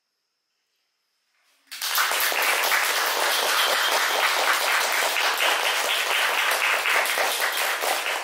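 Audience applauding: dense clapping that starts suddenly after about a second and a half of near silence, then holds steady.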